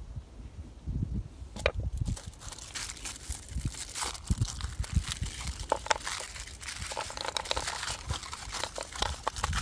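Crinkling and crunching with many sharp clicks, starting about a second and a half in and going on irregularly.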